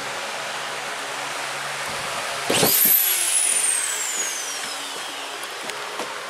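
Corded drywall screw gun run briefly about two and a half seconds in: the motor whines up fast, then winds down in a long falling whine over a couple of seconds. Behind it is the steady hiss of a fan.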